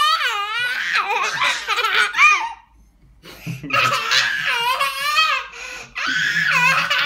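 A young child laughing hard in high-pitched, wavering peals, in three long bursts with short breaks for breath.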